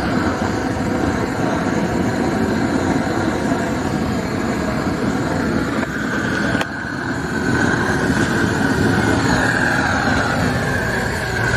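LPG burner torch running steadily, its flame playing on a painted steel bicycle frame to burn the paint off. A sharp click comes a little past halfway, and a higher hiss joins the flame noise after it.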